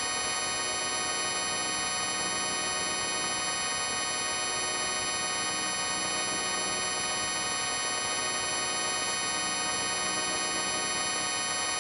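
A sound effect pitch-shifted and layered into a chord, held as a dense, steady drone of many tones that does not change.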